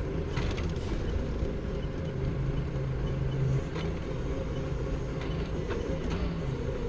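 Doosan 4.5-ton forklift's engine running steadily, heard from inside the cab, its hum growing stronger for about a second and a half midway. A few light knocks and rattles come through.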